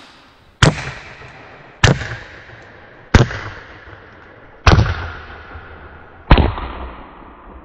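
Bintac T9 .357 PCP air pistol/carbine with a short 8-inch barrel firing five loud shots of diabolo pellets, a little over a second apart. Each shot has a sharp crack that fades slowly, and the last two are the loudest.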